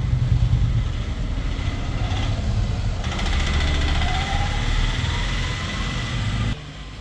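Honda Activa 5G scooter's 110cc single-cylinder engine running, rising in pitch about halfway through as it is revved, then cutting off abruptly near the end.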